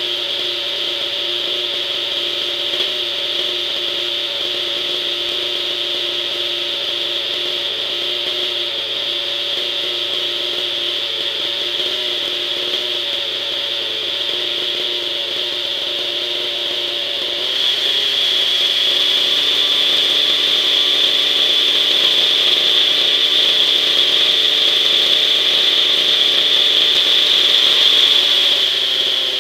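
O.S. 50 Hyper nitro glow engine of a Hirobo SDX 50 RC helicopter running at idle with throttle hold on, during its break-in. A steady engine note that gets louder and changes pitch a little over halfway through, then drops back at the very end.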